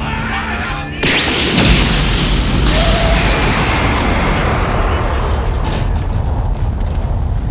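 A stock explosion sound effect: a sudden loud boom about a second in, with a quick rising whistle at its start, then a rumble that carries on for several seconds. Music is heard before the boom.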